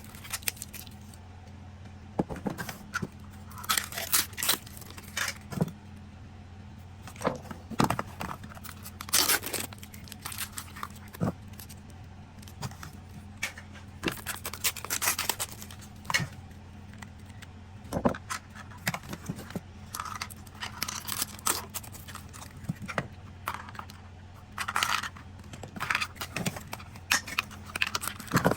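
Zuru Mini Brands capsules being unwrapped: plastic crinkling and tearing in irregular bursts, with sharp clicks as the plastic capsules are handled and opened, over a low steady hum.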